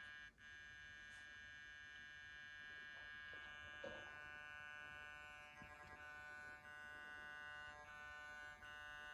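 Small electric motor of a Hornby Flying Scotsman model locomotive buzzing steadily as power is slowly turned up from the controller, with small shifts in pitch; the locomotive is just about to start moving.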